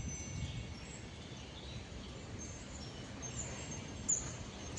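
Outdoor ambience of a steady low background rumble, with small birds chirping high and briefly now and then; the clearest chirp comes about four seconds in.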